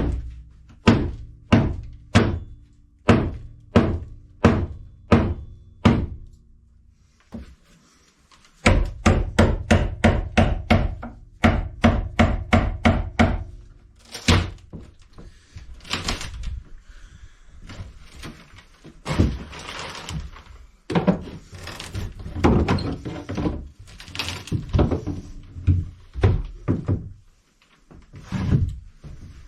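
Hammer blows on the wooden galley counter during demolition: steady strikes about two a second, a short pause, then a faster run of blows. In the second half, irregular knocks with cracking and scraping as the old counter layers are broken out.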